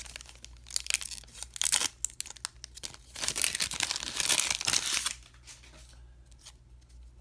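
Plastic wrapper of a 2020 Topps Series 1 baseball card pack being torn open and crinkled: scattered crackles at first, a louder stretch of steady crinkling from about three seconds in that lasts about two seconds, then only faint rustles.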